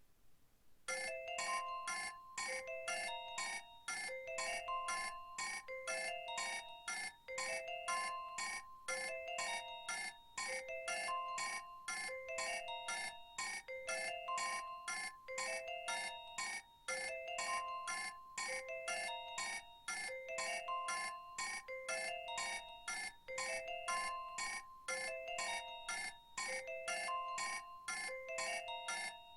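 Nokia 1110 ringtone playing: a short electronic tune of quick beeps, one note at a time, starting about a second in and repeating about every two seconds.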